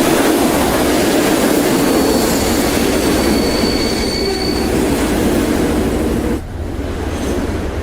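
Train running close by: a loud, steady rush and rumble of wheels on rails, with a faint thin squeal partway through. The sound drops abruptly about six and a half seconds in to a quieter low rumble.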